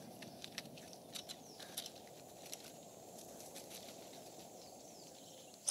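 Faint outdoor ambience with a steady low hiss and scattered light clicks and scuffs: a honey badger cub's claws and feet on tree bark and dry leaf litter as it climbs down and walks off. The clicks are most frequent in the first couple of seconds.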